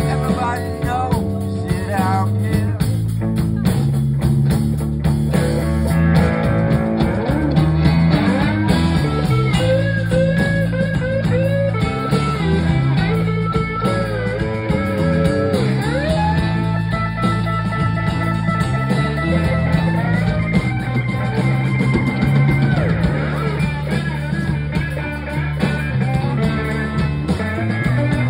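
Live blues band playing an instrumental section: an electric guitar lead with bent and sliding notes over bass guitar and drums.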